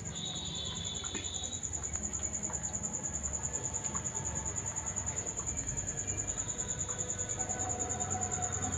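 A cricket chirping continuously in a fast, even, high-pitched pulse.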